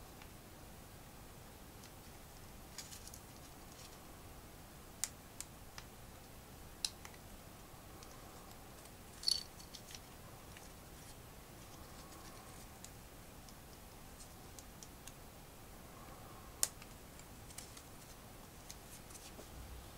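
LEGO plastic pieces being handled and snapped together: sparse, sharp clicks over quiet room tone, with a louder cluster of clicks about nine seconds in.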